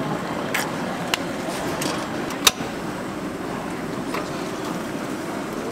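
Steady background noise at a street-food cooking stall with lit gas burners, broken by a few sharp clicks of cookware; the loudest click comes about two and a half seconds in.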